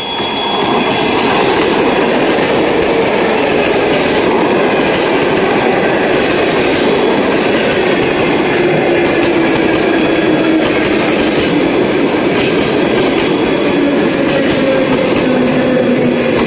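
EP2D electric multiple unit running past close by, a loud steady rumble of wheels on rail with a whine that slowly falls in pitch.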